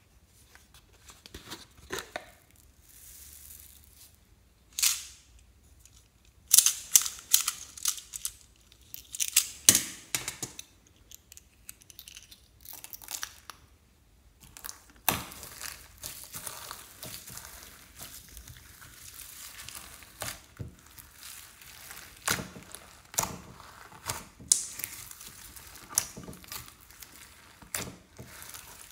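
Foam beads poured from a plastic jar onto slime, then hands pressing and mixing slime packed with foam beads, with dense crunchy crackling and popping through the second half.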